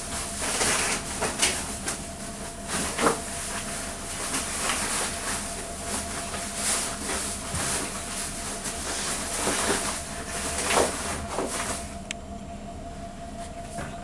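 Rustling and scuffling of towels and bedding as a cat pounces on and wrestles a toy mouse, with irregular sharp scrapes and a few louder thumps, easing off near the end. A faint steady hum underneath.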